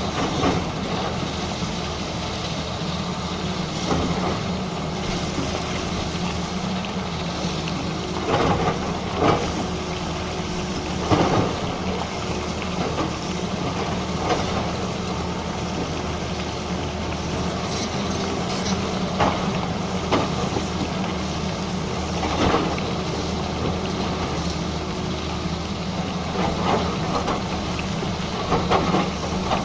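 Excavator's diesel engine running steadily under load, with scattered knocks and clanks from the digging work.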